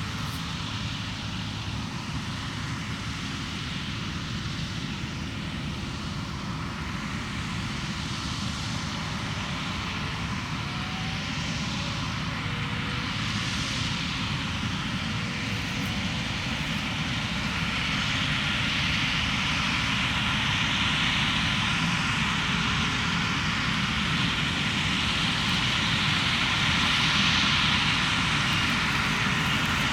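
Claas Lexion 480 combine harvester running while harvesting wheat: a steady engine-and-machinery drone with no distinct rhythm, growing gradually louder through the second half.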